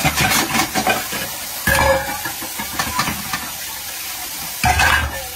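Kitchen tap running into a sink full of pots while a pot is scrubbed with a brush, a steady rushing hiss that swells louder twice.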